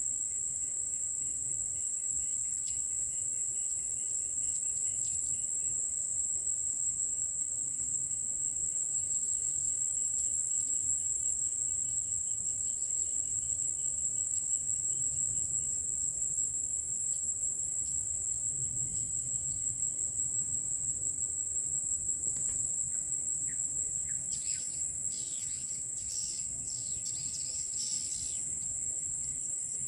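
Insects keep up a steady, high-pitched trill. Near the end, a flock of swiftlets joins in with a run of short, quick chirps.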